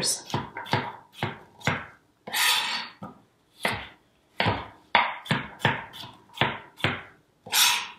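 Kitchen knife dicing apple on a cutting board: quick, irregular chops, roughly two a second with short pauses, and two longer scraping sounds between them.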